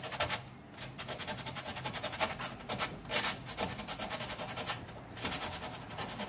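Wet foam sanding block rubbed up and down over a car's clear coat, a steady run of repeated rasping strokes, smoothing out a deep scratch.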